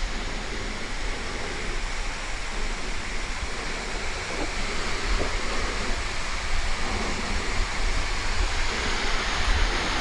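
Steady rushing of a waterfall of about 20 m drop, heard as an even wash of water noise with a low rumble underneath.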